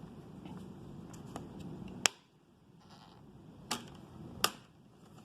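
Plastic snap clips of a laptop screen bezel popping loose as the bezel is pried off by hand: three sharp clicks, the loudest about two seconds in, the others a second or more apart. A low steady rumble underneath stops at the first click.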